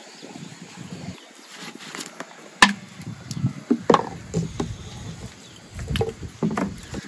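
Handling noises: a plastic water bottle clicking and crackling, and irregular knocks on a bamboo table and plastic bowl, while water is poured into a bowl of flour. There are two sharper clicks, the loudest about two and a half seconds in and another about a second later.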